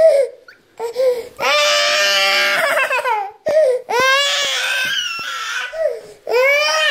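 Toddler crying loudly, wailing in three long, high-pitched bouts with short breaks for breath between them.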